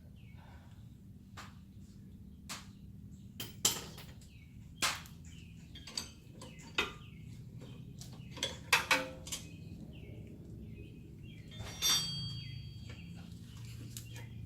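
Irregular metallic clinks and knocks of hand tools and brake parts being handled, with one ringing metal clink late on.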